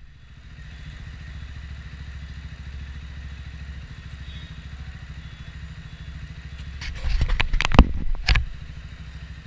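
Scrambler motorcycle engine idling steadily with an even low pulse. About seven seconds in, a cluster of loud knocks and scrapes close to the microphone lasts for about a second and a half.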